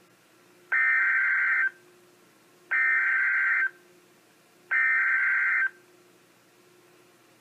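Emergency Alert System SAME header from a NOAA Weather Radio broadcast: three one-second bursts of warbling digital data tones, about two seconds apart. The bursts encode the alert's event code and area for a Local Area Emergency.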